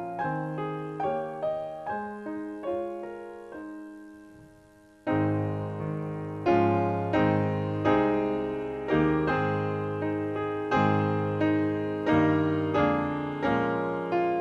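Piano music: single notes and chords, each struck and dying away. A phrase fades out about four seconds in, then fuller, louder chords start about a second later.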